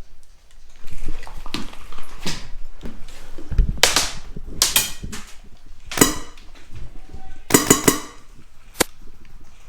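Airsoft rifle firing: separate single shots spaced a second or so apart, then a quick string of four or five shots near the end, followed by one more.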